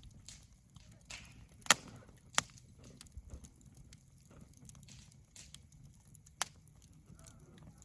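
Wood fire crackling, with scattered small snaps over a low rumble and three loud sharp pops, two close together about two seconds in and one more near the end.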